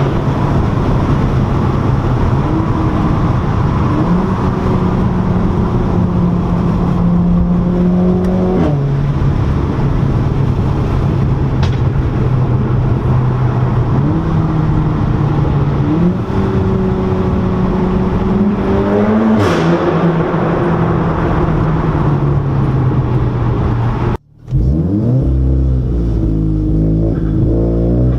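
Turbocharged performance car with a DSG dual-clutch gearbox, its engine and exhaust holding steady revs that step up and down in pitch at each gear change, with a few short sharp pops. About 24 seconds in the sound cuts out briefly and another car follows with its revs climbing.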